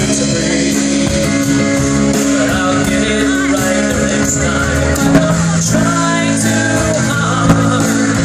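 Live rock trio playing a song: a male voice singing over strummed acoustic guitar, with electric bass and a drum kit.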